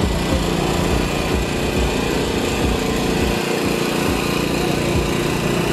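An engine running steadily at idle, with wind buffeting the microphone in irregular low thumps.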